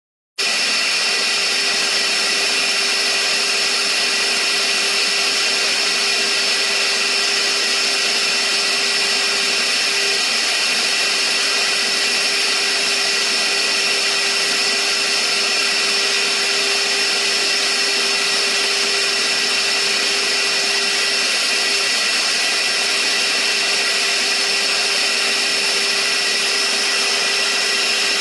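CNC milling machine running, its high-speed spindle giving a loud, steady whine over a hiss, with no change in pitch or level.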